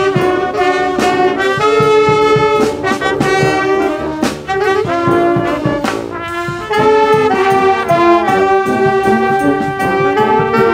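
Brass band music: trumpets and trombones playing a tune over a steady drum beat.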